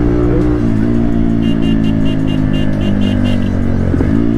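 Motorcycle engine running under way in traffic, its pitch dipping and rising with throttle changes just after the start and again near the end. A quick run of high, evenly spaced ticks comes about a second and a half in.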